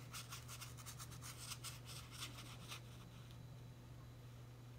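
Faint scratchy rubbing of a watercolour brush stroked over damp paper while softening edges, in many quick strokes that are densest in the first three seconds, over a steady low hum.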